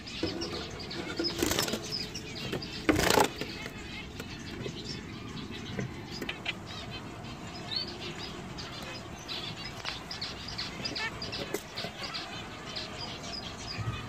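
Caged zebra finches giving rapid, short chirping calls over and over. Two louder bursts of noise stand out about one and a half and three seconds in.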